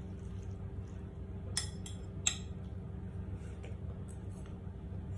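Metal fork and spoon clinking lightly against a ceramic noodle bowl: three short clinks about two seconds in, then a few fainter ticks, over a steady low hum.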